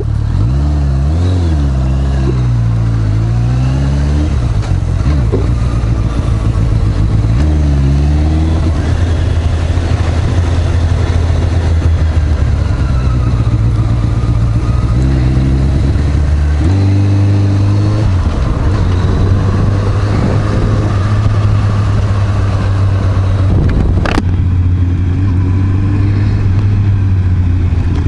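Honda CB650R's inline-four engine pulling away and accelerating, its pitch rising and dropping through several gear changes, then running steadily at cruise with a constant rush of wind noise. A brief sharp knock comes near the end.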